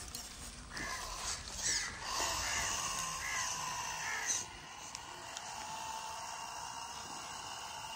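A bird calls five times, just under a second apart, in the first half, over the faint steady whine of the handmade mini tractor's small motor.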